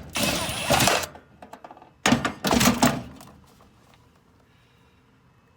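Two bouts of rapid clicking and knocking, each about a second long, the second starting about two seconds in, as small metal parts and tools are handled; then quiet.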